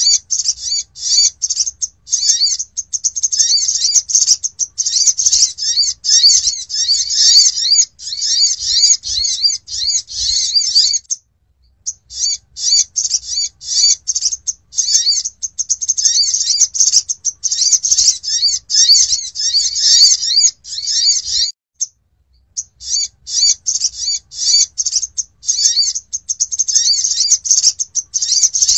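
Sunbird (sogok ontong) calling: rapid high chattering twitters in long runs, with short breaks about 11 and 22 seconds in. It is a lure call for attracting sunbirds.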